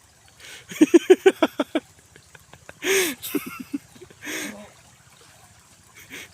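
A person's voice in a quick run of short pulsed bursts, then a longer falling cry with a few more pulses and a breathy burst, over a faint background of flowing water.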